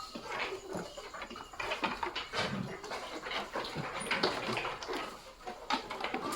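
Rams moving about in a pen: scuffling and knocks throughout, with a brief low animal call about two and a half seconds in.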